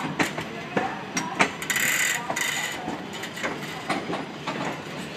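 Passenger coaches rolling slowly past on the rails, the wheels clicking and clanking over rail joints at irregular intervals, with a brief hiss about two seconds in.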